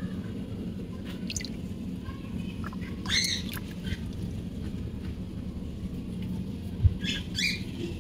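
A few short, arching bird chirps over a steady low background rumble, with a brief dull knock near the end.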